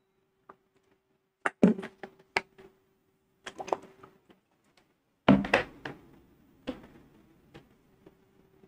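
Someone drinking from and handling a plastic water bottle close to a clip-on microphone: scattered clicks and knocks, with a heavier thump a little past the middle, over a faint steady hum.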